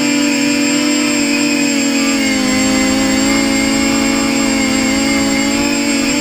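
Versacopter 280 quadcopter's electric motors and propellers whining steadily in flight, heard close up from the camera mounted on the frame; the pitch drops slightly about two seconds in.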